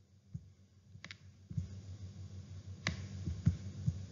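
Scattered soft clicks, about half a dozen, over a low rumble that comes up about a third of the way in.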